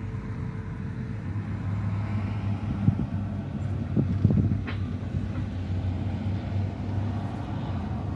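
Steady low hum of a car's engine and tyres heard from inside the cabin while driving on a concrete road, with a few short knocks near the middle.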